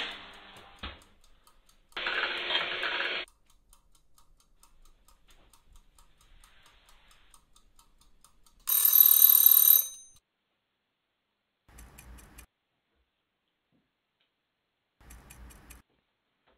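A bell rings loudly for about a second near the middle, over faint steady ticking like a clock. A shorter noisy sound comes about two seconds in, and two brief quiet sounds near the end.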